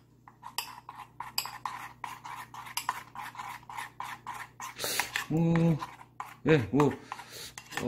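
A metal spoon stirring thin flour batter in a ceramic bowl: a fast, uneven run of clinks and scrapes against the bowl. A man's voice makes two short wordless sounds a little past halfway.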